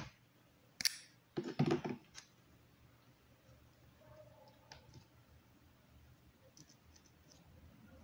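Light clicks and knocks of a metal ruler, wooden craft sticks and a pen being handled and set on a tabletop, bunched in the first two seconds, then only faint occasional ticks.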